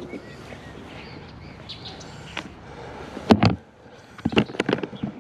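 Birds chirping faintly over a steady outdoor hiss, broken by a few sharp knocks and clicks about three seconds in and a quicker run of them near the end.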